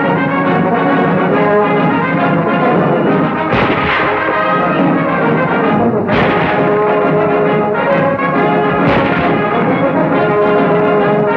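Orchestral title music led by brass, with three sharp crashes about two and a half to three seconds apart.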